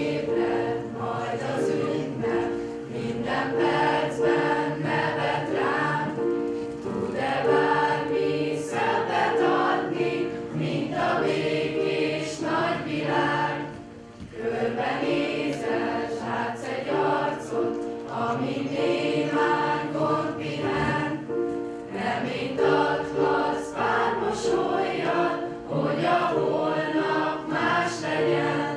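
Choir of teenage boys and girls singing a song together, with guitar accompaniment.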